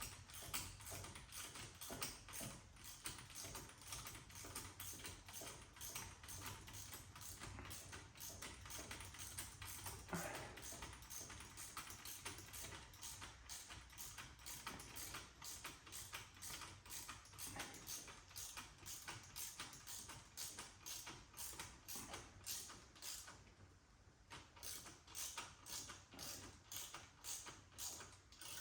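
Ratchet wrench clicking steadily as the exhaust clamp and mount bolts are snugged up, with a short pause near the end.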